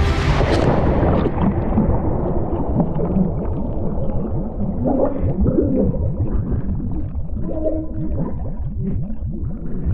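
Underwater plunge: a loud rush of bubbles at the start fades within a couple of seconds into muffled, continuous bubbling and gurgling.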